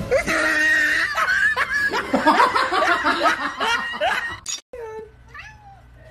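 Several people laughing together, breaking off suddenly after about four and a half seconds.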